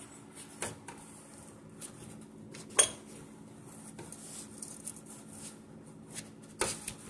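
Socket wrench on the 14 mm transmission-to-engine bolts, giving a few scattered metallic clicks and clinks as the bolts are loosened. The sharpest comes about three seconds in, over a faint steady hum.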